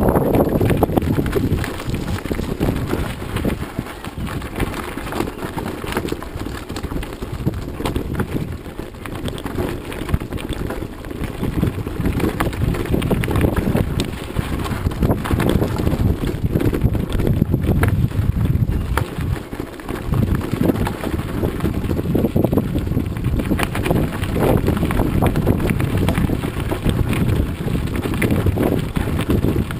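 Mountain bike rolling down a loose gravel road: the tyres crunch over the stones and the bike rattles and clatters over the bumps, a steady rumble full of small clicks.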